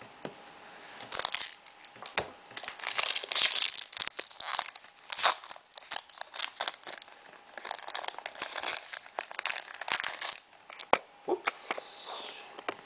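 Foil wrapper of a Pokémon trading-card booster pack being torn open and crinkled by hand, in an irregular run of crackles and rustles.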